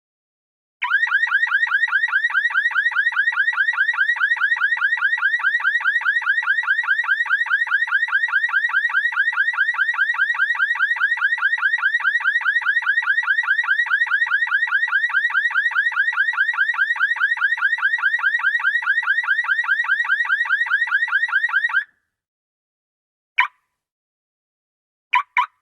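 Car alarm siren going off with a fast, repeating rising warble. It stops about 22 seconds in, followed by one short chirp and then a quick double chirp near the end.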